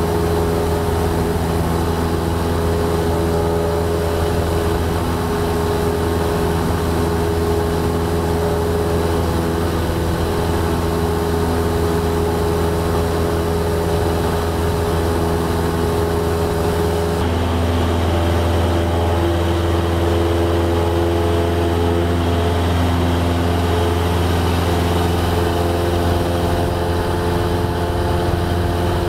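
Cessna 172's piston engine and propeller droning steadily in cruise flight, heard inside the cabin. Its tone shifts slightly a little over halfway through.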